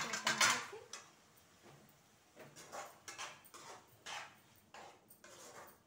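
Metal slotted ladle stirring and scraping softened tomatoes around a kadai, a series of short scrapes, after a louder clatter right at the start.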